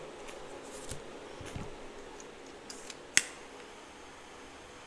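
Paper scratch-off lottery tickets being handled and sorted: a few faint taps and rustles, then one sharp click about three seconds in.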